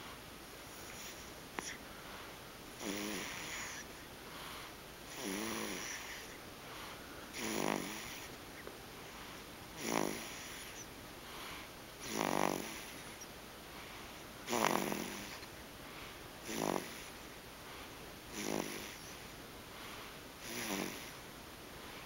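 An infant snoring in sleep: a short pitched snore roughly every two seconds, about nine in all.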